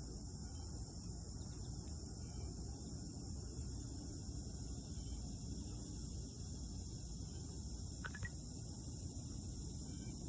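Steady high-pitched insect chorus, with a low even rumbling noise beneath it and a brief chirp about eight seconds in.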